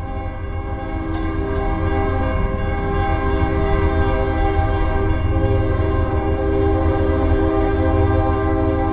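Diesel freight locomotive's air horn holding one long steady chord as the train approaches, over the low rumble of its engines. It grows louder over the first few seconds, then holds.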